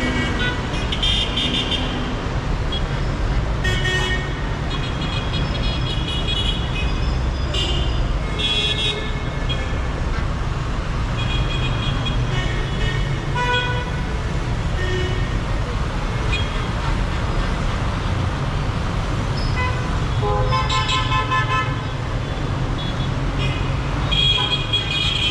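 Dense city street traffic: a steady rumble of engines and tyres, with car horns honking in short toots again and again over it.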